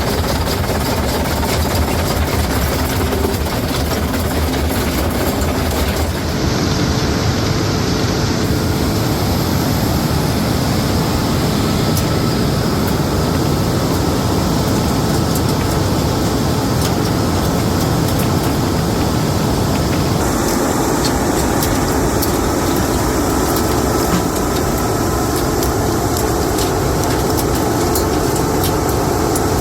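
Keestrack B4E mobile jaw crusher working demolition concrete: a loud, steady machine din with a continual clatter of broken concrete. Its character shifts abruptly about six and again about twenty seconds in.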